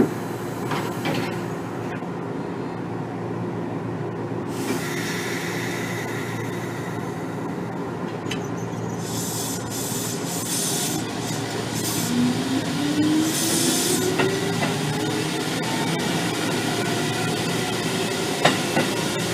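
Running sound inside a Kotoden 1300 series electric car (ex-Keikyu old 1000 series, resistance-controlled, with DC series-wound traction motors): steady wheel and motor noise with a whine that rises in pitch about two thirds of the way through, and a few sharp clicks of wheels over rail joints near the start and near the end.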